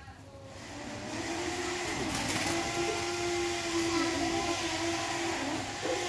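A steady motor hum that swells in over the first two seconds and then holds at an even pitch.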